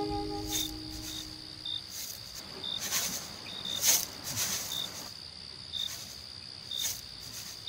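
Crickets chirping: a steady high trill with short chirps repeating every half second to a second. A few soft knocks or clicks fall in among them, the loudest about four seconds in. A held music chord fades out in the first second.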